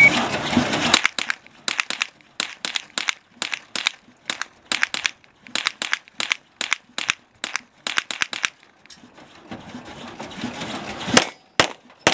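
Rapid semi-automatic fire from an AR-style rifle: about two dozen sharp shots, many in quick pairs, from about a second in until past the eighth second. After a short pause a few more shots come near the end.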